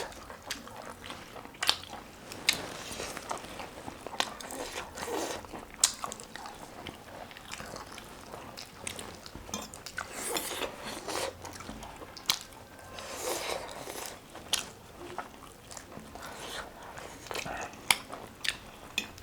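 A person eating roast chicken close to the microphone: chewing and biting, with many short sharp clicks scattered throughout.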